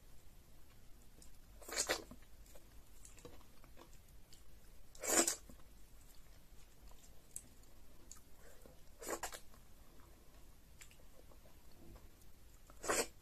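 Close-up mouth sounds of a person eating fufu and egusi soup by hand: four loud short smacks, about one every four seconds, over faint chewing.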